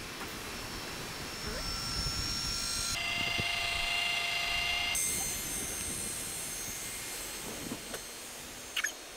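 Electric rooftop tent's lift motor running steadily as the tent rises, a mechanical hum with a high whine.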